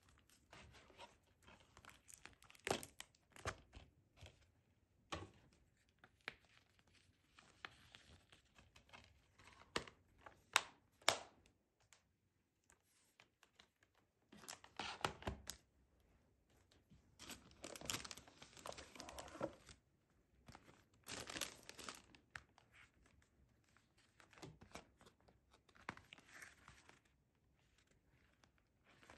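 Plastic sleeves and cardboard packaging being handled, crinkling and rustling in short spells, with a few sharp taps and clicks in between.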